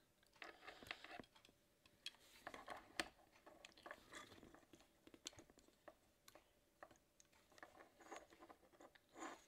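Faint, scattered clicks and scratches of small plastic transforming-robot figure parts being handled, as a scope is fitted to a tiny toy sniper rifle and the figure is posed, with one sharper click about three seconds in.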